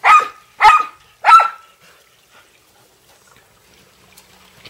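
Groenendael (black Belgian Shepherd) barking three times in quick succession, about two barks a second, in frisbee play.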